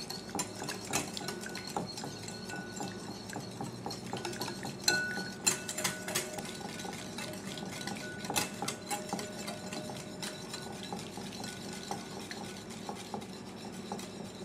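Wire whisk beating continuously against the sides of a ceramic bowl, a rapid steady clatter, as olive oil is slowly whisked in to emulsify a dressing. A few louder clinks stand out about five seconds in and again past eight seconds.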